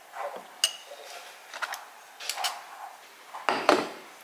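A metal teaspoon scraping and clinking inside a jar as chocolate spread is scooped out: a handful of short clinks and scrapes, with a louder clatter near the end.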